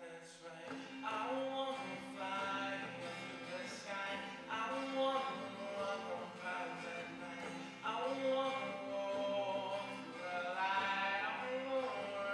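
A man singing with his own twelve-string acoustic guitar accompaniment, held sung phrases of a second or two with short breaks between them, over sustained strummed chords.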